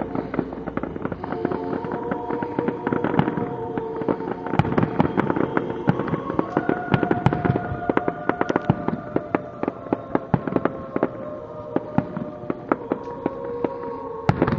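Aerial fireworks shells bursting and crackling in a rapid string of sharp bangs, thickest through the middle. Music from a radio plays underneath in held notes.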